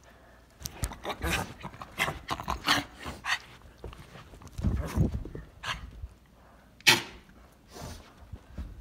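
A small dog barking and scuffling during a chase, mixed with irregular knocks and rubbing from a phone jostled in a running hand; a single sharp knock comes near the end.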